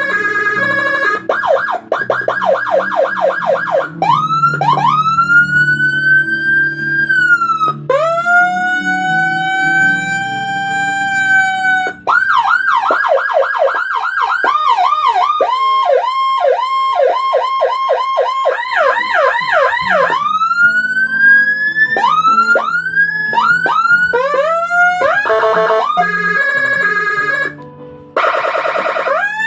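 Whelen HHS-type 60-watt electronic siren module stepping through its tones, switching every few seconds. There are fast warbling yelps of about five sweeps a second, slow wails that rise and then hold, and quick repeated sweeping tones.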